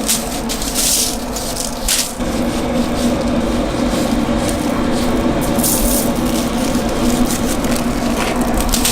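Dry spice rub shaken from its container onto a raw tri-tip, the grains hissing out in several short bursts, with a steady low hum underneath.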